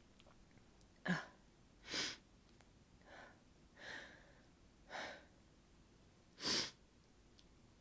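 A woman's short breaths and sniffs between sneezes, about six of them, roughly a second apart. The longest and loudest is a breath about six and a half seconds in.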